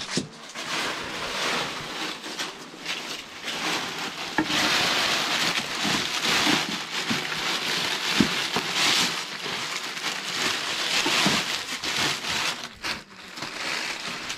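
Continuous rustling and crackling of dry, brittle pieces, sacking and cloth being rummaged through and shifted by hand, louder from about four seconds in to about nine seconds.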